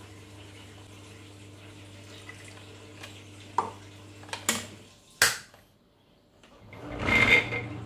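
Water poured from a plastic measuring cup into the steamer-blender's water reservoir, followed by a few sharp plastic knocks as the cup is set down and the appliance is handled. It ends in a louder scraping rattle of plastic near the end.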